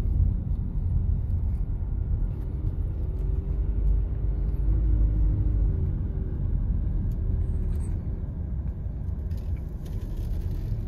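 Low, steady rumble of a car driving slowly, heard from inside the cabin: engine and tyre noise, with a faint wavering hum and slightly quieter near the end.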